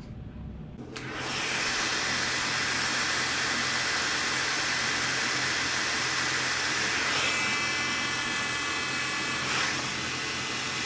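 Small handheld heat gun switched on about a second in and blowing steadily, shrinking heat-shrink tubing over a soldered wire splice. A thin higher whine joins for a couple of seconds about seven seconds in.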